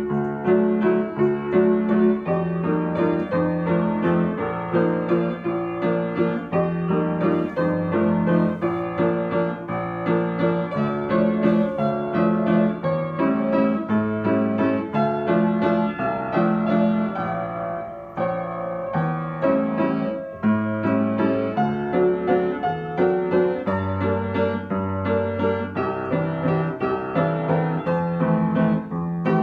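Upright acoustic piano played solo: a continuous flowing piece of many notes, with a brief softer moment a little past the middle.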